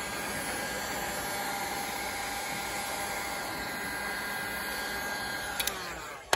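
Electric heat gun blowing hot air steadily onto glue-lined heat shrink tubing to shrink it. Near the end it clicks off and its fan winds down with a falling whine, followed by a knock.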